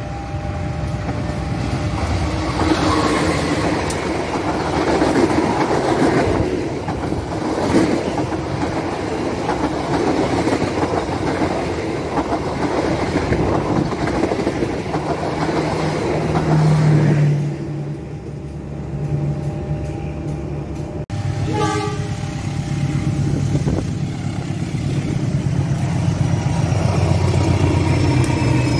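A passenger train rolling past close by, its wheels clattering over the rails, with a horn sounding at the start. After a sudden change about two-thirds of the way in, a CC203 diesel-electric locomotive's engine runs with a steady low drone as it passes.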